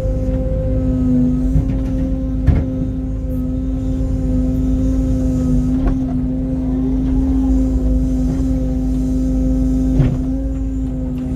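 Mini excavator's engine and hydraulics running steadily with an even hum, heard from the operator's seat. Three sharp knocks are spread through it as the machine works rock into a dump truck.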